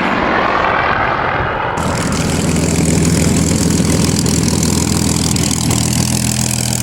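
Aircraft engines droning steadily in a low hum from the flying display. About two seconds in the sound changes abruptly and a broad hiss joins the drone.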